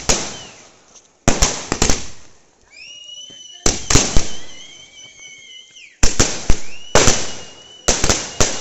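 Fireworks going off in clusters of sharp bangs and crackles, a new cluster every second or two. Between bursts in the middle, a high whistling tone rises, holds and wavers for a few seconds.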